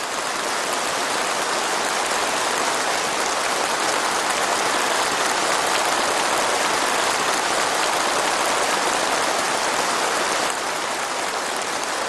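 Sustained applause from a very large crowd in a big hall, a dense, steady wash of clapping with no single claps standing out. It eases slightly near the end.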